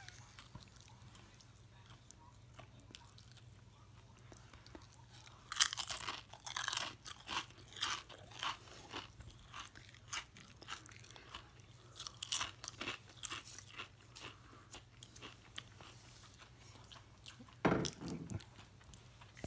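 Protein chips crunched and chewed with the mouth close to the microphone, in crackly bouts that start about five and a half seconds in and come again about twelve seconds in, with one heavier crunch near the end.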